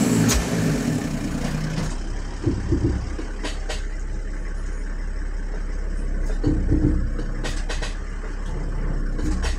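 Toyota Coaster bus diesel engine held at raised revs for about two seconds, then dropping back to a steady idle, as the exhaust brake is demonstrated on the parked bus. A few sharp clicks and short low rumbles come over the idle.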